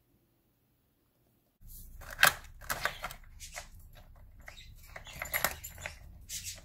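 Near silence, then from about a second and a half in, the hard plastic pieces of a dog puzzle toy clacking and rattling irregularly as a dog noses and shifts them, the loudest clack about two seconds in, over a low hum.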